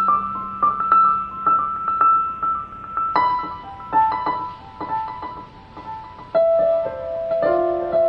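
Slow piano music: single notes struck about once a second, moving into fuller held chords near the end.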